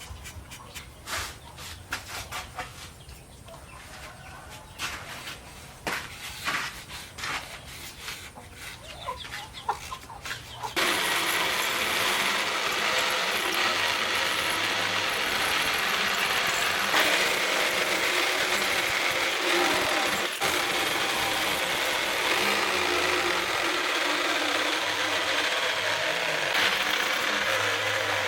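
Scattered scrapes and light knocks of hand work on a steel knife blank. About eleven seconds in, a power tool starts suddenly and grinds the steel with a steady, harsh noise.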